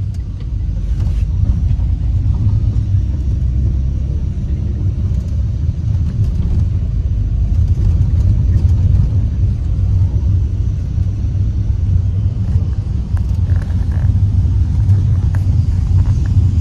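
Steady low rumble of engine and road noise inside a moving bus, with a few faint rattles.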